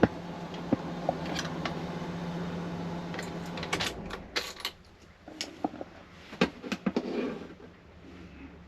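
A steady hum in the motorhome cab cuts off about four seconds in, followed by a run of sharp clicks and knocks.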